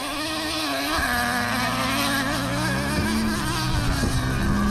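Nitro RC truck's small glow-fuel engine running and revving, its pitch wavering and rising as the throttle is worked.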